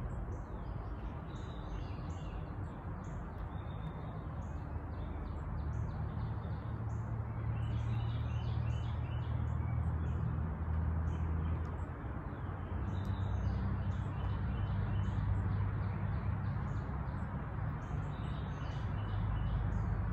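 Songbirds chirping, with several quick repeated trills, over a steady low hum.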